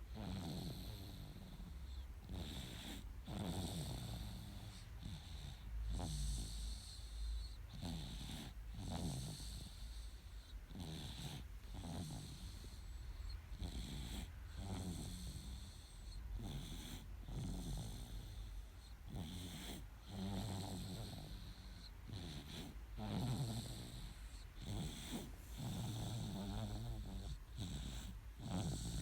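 A nine-month-old baby snoring in sleep: a rasping snore on each breath, repeating evenly about once every one to two seconds.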